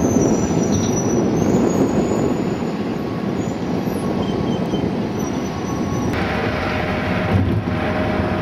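Steady low noise, like distant city traffic, that gives way about six seconds in to the engine and road noise heard inside a moving car.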